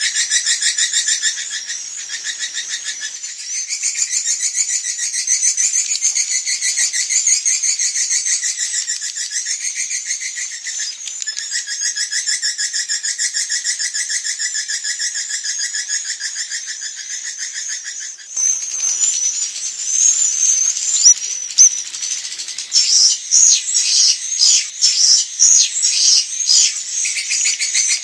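Swiftlet calls played as a lure: a dense, fast, twittering chatter that changes about two-thirds of the way through to sharper, separate chirps. This is the evening roosting ('inap') call used to draw swiftlets into a nesting house.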